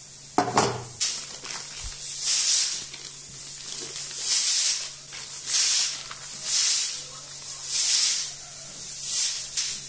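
Baking parchment paper crinkling and rustling in repeated bursts, about one a second, as it is peeled away from a baked cheesecake. A sharp knock sounds about half a second in.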